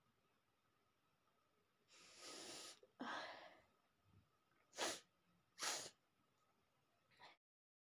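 A woman with a head cold sneezing. A noisy in-breath is followed by a full sneeze about three seconds in, then two short, sharp sneezes about a second apart. The sound cuts off suddenly near the end.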